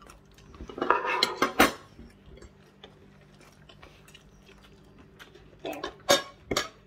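A fork clinking and scraping on a plate, in two short bursts of sharp clicks, about a second in and again near the end, over a faint steady hum.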